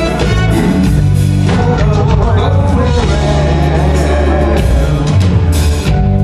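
Live soul band playing a slow ballad, with drums, bass, guitar and keyboards, and the vocal group singing harmony over it.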